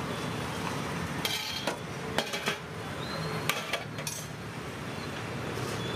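Stainless-steel serving ladle clinking against steel curry pots as curry is served, a series of sharp metallic clinks over a steady low background noise.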